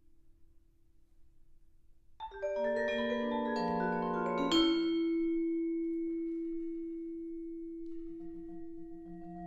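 Yamaha vibraphone played with four yarn mallets. After about two seconds of near quiet, a fast flurry of notes runs across the bars and ends on a loud struck note about halfway through that rings on with a long fade. Near the end a low note enters and pulses as it rings.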